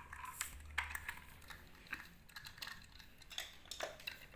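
Light, irregular clicks and taps of small plastic toy parts being handled, a motorized toy train being fiddled with to open its screwed battery cover.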